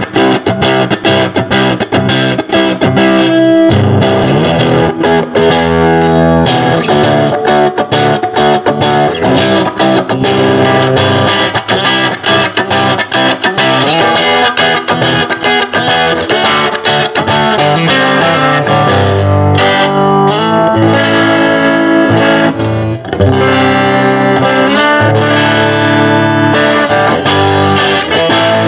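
Stratocaster-style electric guitar played through a handmade point-to-point 5-watt Tweed Champ-style tube amp with an EL84 power tube and an 8-inch speaker: a continuous run of quickly changing picked notes and chords.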